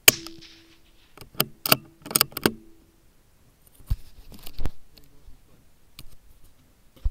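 A rifle shot fired at a rabbit: one very loud sharp crack, then a quick run of sharp clicks and knocks from the rifle being handled. Two duller knocks follow, and another sharp crack comes right at the end.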